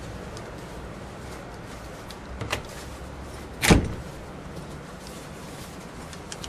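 A light click, then about a second later a single sharp knock, over a steady low hum.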